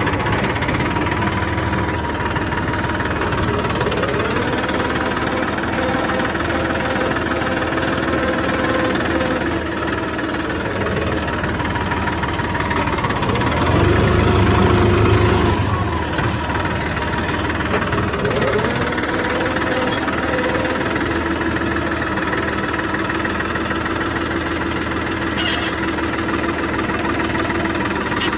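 New Holland tractor's diesel engine running steadily, heard close from the driver's seat as the tractor drives, with a louder, deeper stretch about halfway through.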